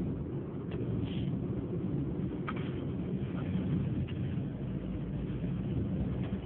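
Steady low background rumble, with a few faint short clicks about a second in and again after two seconds.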